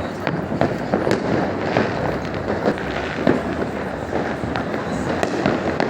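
Many fireworks and firecrackers going off at once: a continuous barrage of sharp bangs several times a second over dense crackling.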